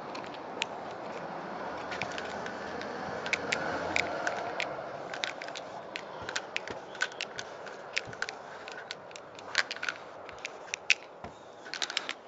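Marker tip scraping across a painted door as a graffiti tag is written, a rough rubbing sound that is strongest a few seconds in. Many sharp clicks and taps come through the second half, several a second at times.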